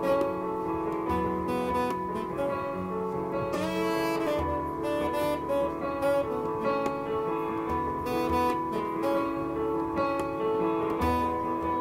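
Instrumental small-band music: a melody line with keyboard chords and light hand-drum percussion.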